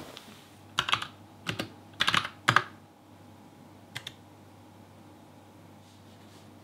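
Typing on a computer keyboard. Several quick runs of keystrokes come between about one and two and a half seconds in, then a single keystroke about four seconds in.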